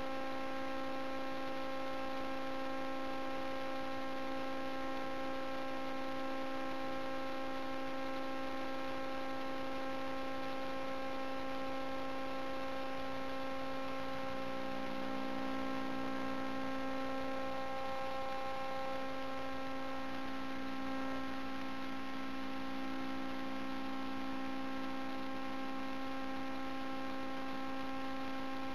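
A steady hum: one unchanging pitched drone with a ladder of overtones over a faint hiss.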